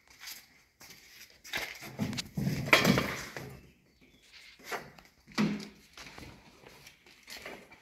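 Footsteps and scuffs on a concrete floor, coming irregularly, with the loudest cluster about three seconds in.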